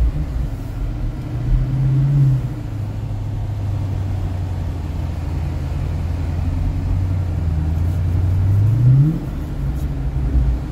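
Car engine heard from inside the cabin while driving slowly, sounding like a stock factory exhaust. Its low steady drone drops in pitch about two seconds in, then rises quickly as the car accelerates about nine seconds in.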